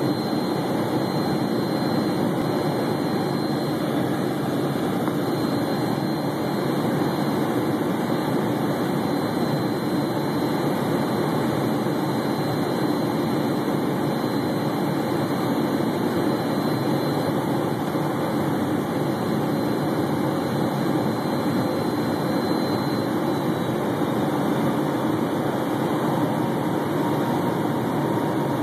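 Steady cabin noise of an Embraer Phenom 100 light jet in flight: the even hum and rush of its twin turbofan engines and the airflow, heard from inside the cabin. A thin high whine runs along with it and stops about three quarters of the way through.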